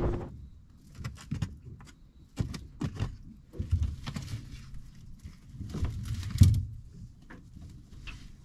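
The wind and engine noise of the moving boat cut off right at the start, followed by scattered knocks, clunks and thumps in the small boat, the loudest a thump about six seconds in.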